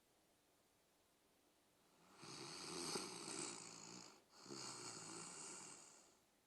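Snoring: two long snoring breaths, one straight after the other, each lasting about two seconds.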